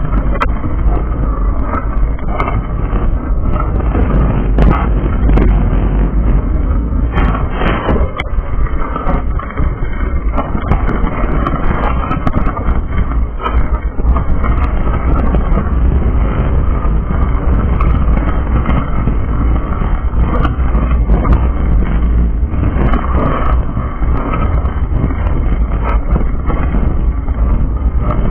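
Ride noise picked up by a bicycle-mounted action camera as the bike rolls over pavement: a loud, steady low rumble with frequent small rattles and clicks from the mount.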